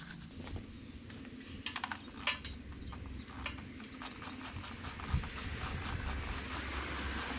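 Ratchet wrench clicking as the bolts holding a motorcycle's battery cover are loosened: a few separate clicks, then a quick even run of light clicks from about halfway in.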